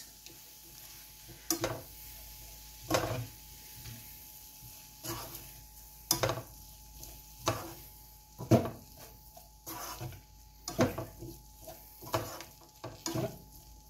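A spatula stirring chopped onions, tomatoes and spices in a nonstick frying pan, with irregular knocks and scrapes against the pan about once a second or so.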